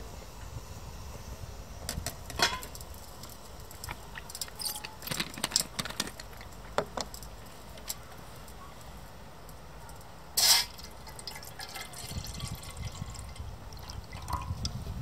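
Light metal clinks and clanks as a metal kettle is set onto a Trangia spirit stove inside an aluminium windscreen. There is one short, loud rush of noise about ten seconds in. Near the end, water starts pouring from a bottle into the kettle.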